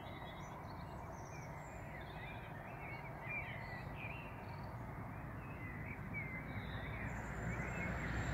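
Dawn chorus: many birds singing, a scatter of quick chirps and warbles, over a steady low hum of road traffic that grows a little louder near the end.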